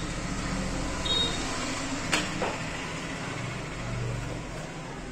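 Steady low background hum with bench handling noises: a short high tone about a second in and a sharp click just after two seconds.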